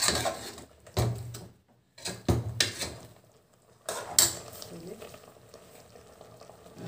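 Steel ladle stirring in an aluminium pressure cooker, clanking and scraping against the pot several times in the first few seconds, then quieter stirring.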